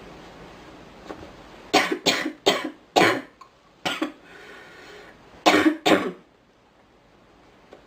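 A girl coughing in a fit: a quick run of about five coughs, then two more after a short pause.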